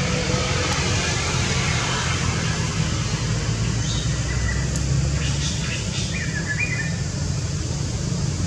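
Steady low rumble of outdoor background noise, with a few short, high, wavering chirps about five to seven seconds in.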